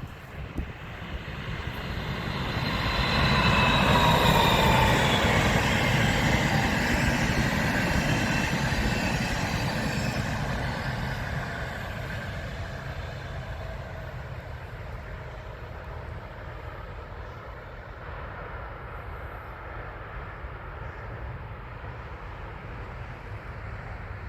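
A train passing by on the line. Its noise builds over the first few seconds and is loudest a few seconds in, carrying high whining tones that slide down in pitch, then slowly fades away.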